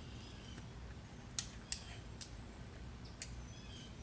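Light clicks and faint scraping of plastic and metal parts being handled: the opened drive mechanism of a Ridgid 18V finish nailer being repositioned by hand. Four sharp clicks come spread over about two seconds, with soft scraping in between.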